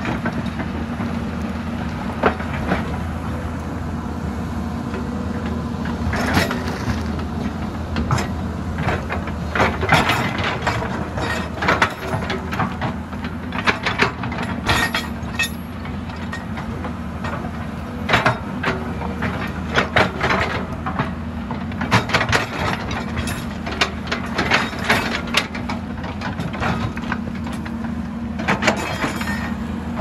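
Hyundai crawler excavator's diesel engine running steadily while its bucket digs into a pile of broken rock, stones knocking and scraping against each other and the steel bucket in irregular clusters.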